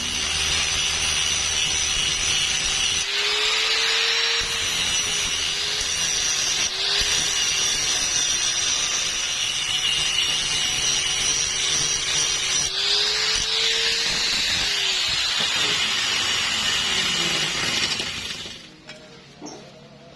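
A power tool working metal: a steady grinding hiss over a motor whine whose pitch dips and recovers as it takes load. It stops about 18 seconds in.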